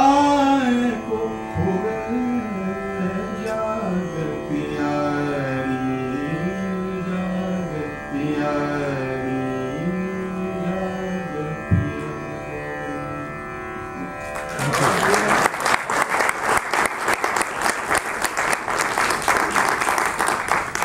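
Slow Indian classical-style singing, long held notes gliding between pitches over a steady instrumental drone. About two-thirds of the way through the music gives way to audience applause.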